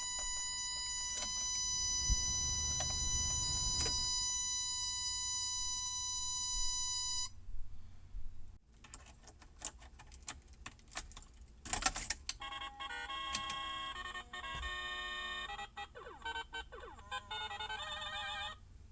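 An electronic buzzer sounds a steady high tone for about seven seconds and stops, followed by a few clicks. Then a programmable piezo buzzer, fitted as a custom door chime in a 1988 Toyota pickup, plays a short beeping melody of changing notes, ending in quick warbling notes.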